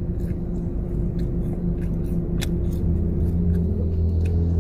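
Steady low hum of a car engine idling, heard inside the cabin, with scattered small clicks from chewing fries.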